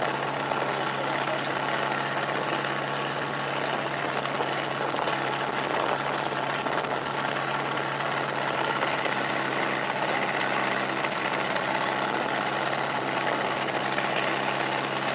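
FOX V4 ultralight aircraft's engine and propeller running steadily at low power, idling while it rolls along the runway.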